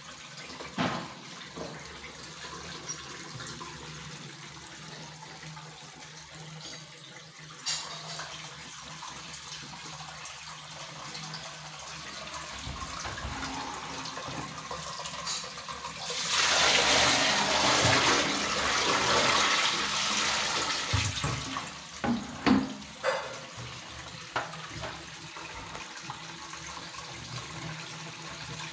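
Water rushing into a squat toilet pan and down its drain. The flow builds and is loudest for about five seconds past the middle. A few sharp knocks follow.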